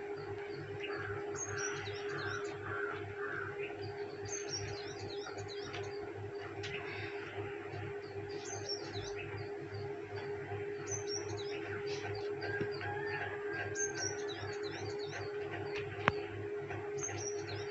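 Small birds chirping in short clusters of high notes every few seconds, over a steady hum. A single sharp click near the end.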